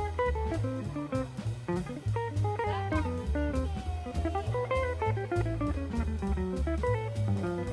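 Instrumental background music: a plucked guitar melody over a bass line and a steady drum-kit beat.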